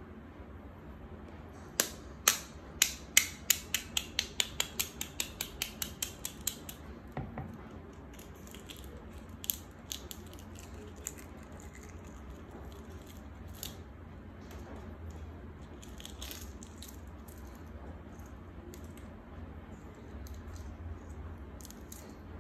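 Shells of grilled chicken eggs tapped to crack them: a quick run of sharp taps, speeding up and fading over about five seconds. Then scattered light crackles as the cracked shell is picked off by fingers.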